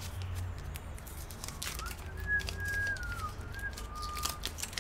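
A short whistled phrase of a few held notes, stepping down with short glides between them, over a low steady hum and a few faint clicks of handling.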